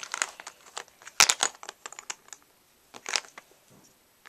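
Plastic Lego bricks clicking and clattering as they are handled and pressed together on a plastic box lid: a run of sharp clicks, loudest a little over a second in and again at about three seconds.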